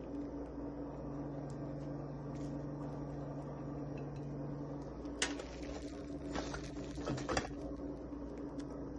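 Serving spoon scooping cooked rice from a rice cooker pot and setting it on a ceramic plate: a sharp click about five seconds in, then a short run of clicks and scrapes, over a steady low hum.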